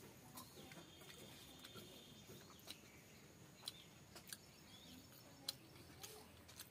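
Quiet eating by hand: a few sharp mouth clicks and smacks while chewing small fish, over faint bird chirps.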